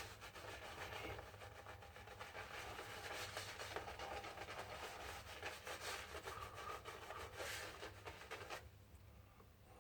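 Synthetic-knot shaving brush whisking a wet shave gel into lather, a continuous run of quick rubbing, swishing strokes that dies away about a second before the end.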